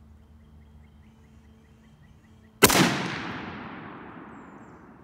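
A single shot from a 7.62 NATO FN FAL-pattern rifle about two and a half seconds in, its report echoing and dying away over about two seconds.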